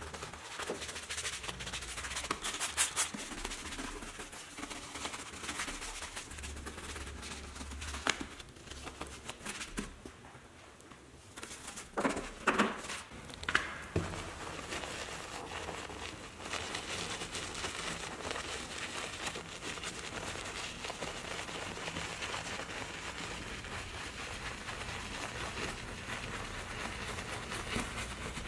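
Soft-bristled detailing brush scrubbing through soap foam on painted and chrome truck trim: bristles swishing and foam crackling, with a few sharper taps about halfway through.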